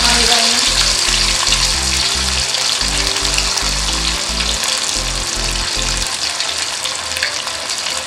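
A masala-coated fish fillet deep-frying in very hot oil in a wok, with a steady, vigorous sizzle and bubbling as the fish has just gone in. Low background music notes sound underneath until about six seconds in.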